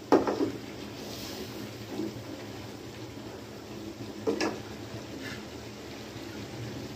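Steel spoon stirring thick chicken curry in a metal pot, with a sharp clink against the pot just after the start and another about four seconds in, over a steady low hiss.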